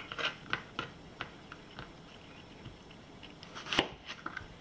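Knife cutting fruit into chunks: a few light taps in the first second, then a sharper knock near the end followed by a few soft ones.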